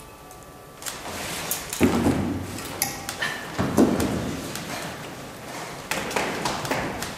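A run of thumps and knocks on a wooden table as a man settles down to lie on it, heaviest twice in the first half, followed near the end by footsteps coming down a staircase.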